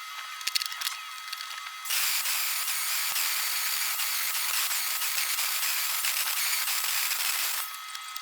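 Electric welding arc crackling and hissing steadily for about six seconds, starting about two seconds in after a few light clicks.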